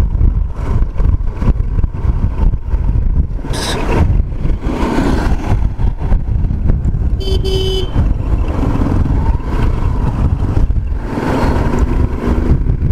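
Riding a Hero Xtreme motorcycle over a paver-block road: wind rushing over the microphone with engine and tyre rumble underneath. A short horn toot sounds about seven seconds in.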